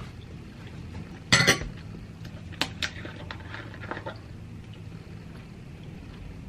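Cutlery clinking and scraping on a plate: a louder clatter about a second and a half in, then a few lighter clinks.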